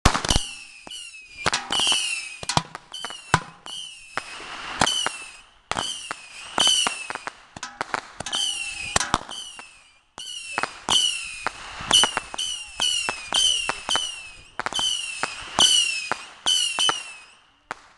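Saturn missile fireworks going off in a crawfish pot: a rapid volley of short shrieking whistles, each falling in pitch, mixed with sharp cracking bangs, with a brief pause about ten seconds in.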